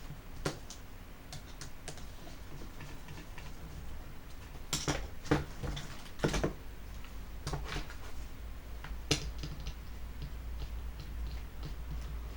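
Small hard parts and tools being handled: irregular light clicks and taps, with a few sharper knocks around the middle.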